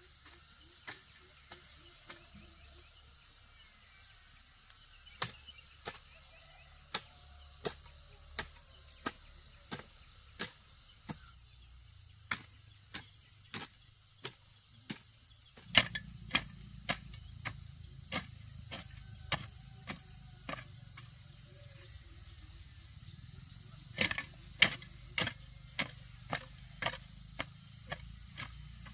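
Repeated sharp knocks of a hand tool striking, about one and a half a second, in runs with short pauses, over a steady high drone of insects.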